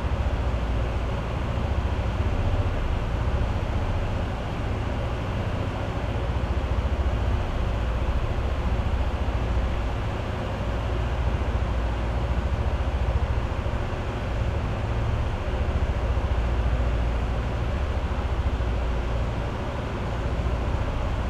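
Steady low rumble of a vehicle on the move, road and engine noise with no distinct events.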